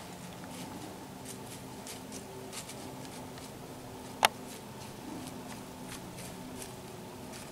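Soft scattered rustles and steps of a young whitetail buck walking through dry grass and leaves, with one sharp click a little past halfway through.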